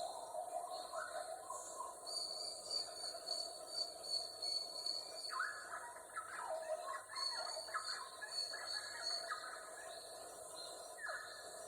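Rainforest ambience: a steady high-pitched drone under bursts of rapid, repeated bird calls, busiest in the middle, with one call sliding down in pitch near the end.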